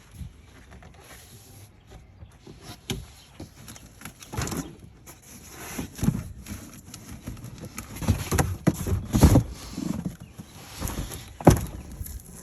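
Heavy cardboard shipping box being opened and its parts handled: irregular rips, scrapes and knocks, louder and busier in the second half.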